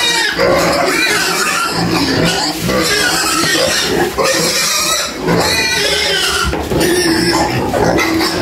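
A pen of pigs squealing and grunting loudly and without a break, a noisy clamour of hungry pigs as their feed is poured into the trough.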